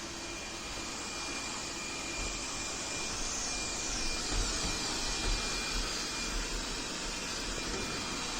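Robot vacuum cleaner running: a steady suction hiss with a thin high whine held throughout.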